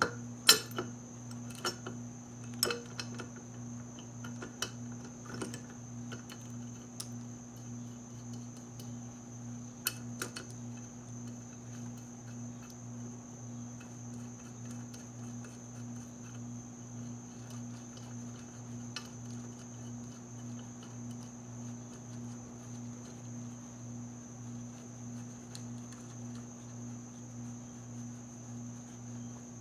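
Sharp metal clinks of bolts and a bolt-on valve spring compressor being handled on a cylinder head, several in the first ten seconds and one more near the twentieth, over a steady low hum with a slow pulse and a steady high-pitched whine.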